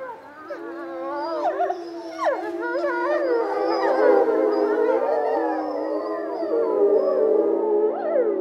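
A pack of gray wolves howling in chorus. Many voices overlap, rising and falling, with quick yelping glides among the long howls. The chorus starts faintly and swells within the first couple of seconds.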